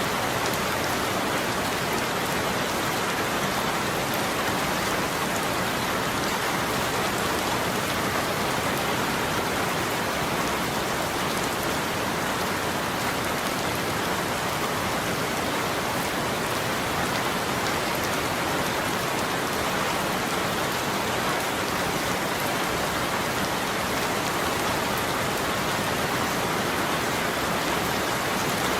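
Steady rainfall, an even hiss of many drops falling, with no change in intensity.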